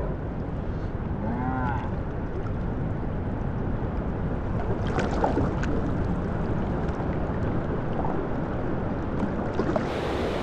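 Steady rush of a small river running over shallow riffles, with a brief shout about one and a half seconds in.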